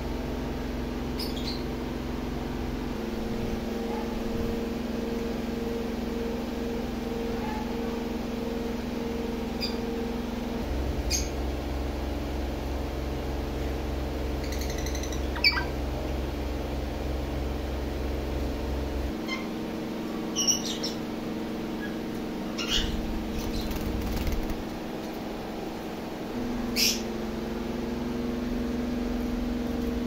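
Caged lovebirds giving short, high chirps and squeaks now and then, the sharpest about halfway through and near the end, over a steady low hum.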